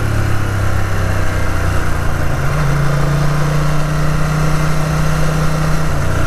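Ducati 900 SS air-cooled V-twin running steadily while the motorcycle is ridden, with wind noise. The engine note rises about two seconds in and drops back near the end.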